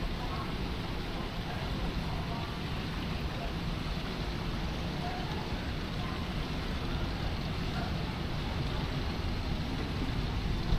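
Steady low rumble of outdoor city background noise, with faint snatches of distant voices.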